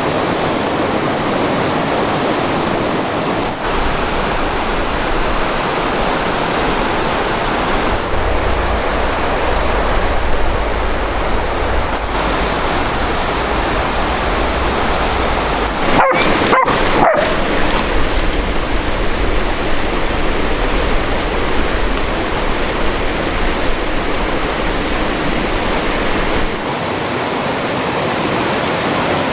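Steady rush of flowing mountain-stream water, with a dog giving a short yelp about halfway through.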